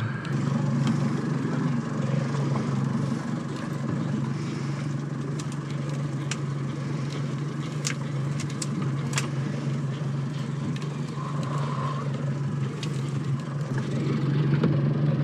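Boat engine idling steadily, a low even hum under wind and water noise, with a few faint clicks.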